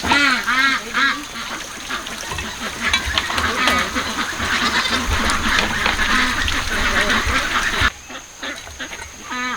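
Farm poultry calling: a quick run of short, repeated honk-like calls in the first second or so, and one more call at the very end. In between, a crackling rustle with low thumps that stops abruptly.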